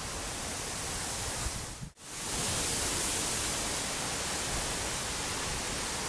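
Steady outdoor noise hiss with an uneven low rumble underneath; it drops out for an instant about two seconds in, then carries on slightly louder.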